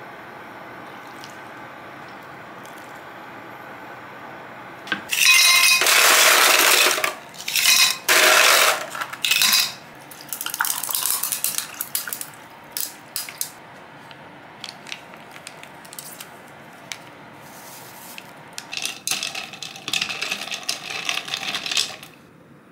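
Kitchen clatter of ice and glassware: several loud rattling clatters, then water poured from a plastic bottle into a glass of ice cubes, and near the end ice cubes clinking in the glass as the drink is stirred.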